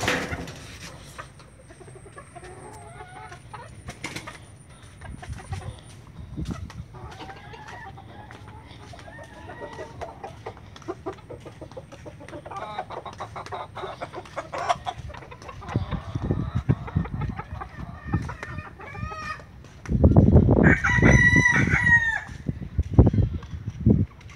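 Domestic roosters clucking faintly, with scattered clicks. About twenty seconds in, a rooster crows once, loudly, for about two seconds over low rumbling noise.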